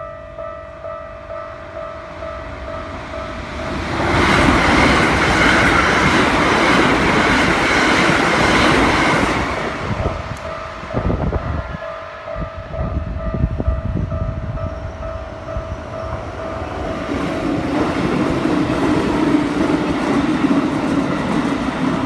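Japanese railway level-crossing bell ringing in a steady repeating ding while trains run over the crossing. A loud rush of wheels on rail builds about four seconds in, with knocking of wheels over rail joints as it fades. Near the end a Keikyu electric train comes through again and passes.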